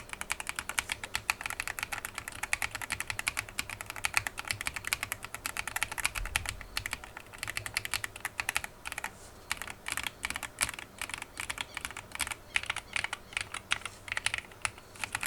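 Continuous fast typing on a GMK67 mechanical keyboard fitted with lubed Akko switches and PBT double-shot XDA keycaps: a steady stream of quick key clacks, many strokes a second.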